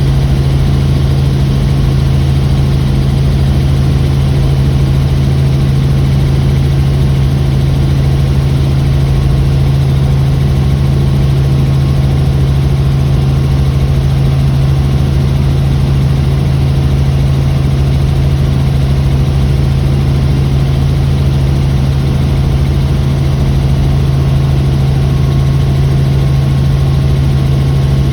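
Helicopter engine and rotor running steadily: a loud, unchanging drone with a strong low hum.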